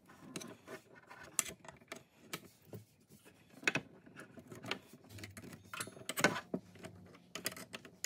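Audio cable connectors being plugged into a DAC's back-panel sockets: irregular small clicks and knocks of metal XLR and RCA plugs seating, with cable rustling between them.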